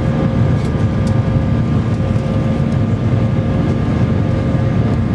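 Steady jet engine and airflow noise inside the cabin of an Airbus A319 in its climb after take-off: a loud, even low drone with a faint steady whine over it.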